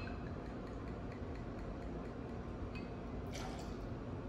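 Liqueur trickling from a bottle into a small metal jigger, faint over steady room noise; about three seconds in, a short splash and clink as the jigger is tipped into a glass mixing glass.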